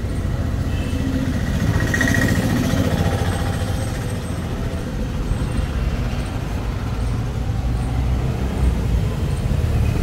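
Steady low rumble of a running vehicle engine.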